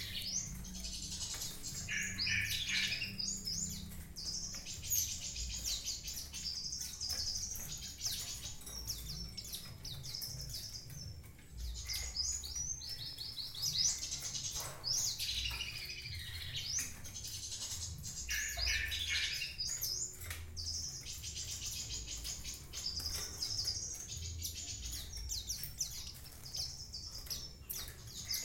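Small caged songbirds chirping and twittering without pause, a steady stream of quick high-pitched chirps and short trills.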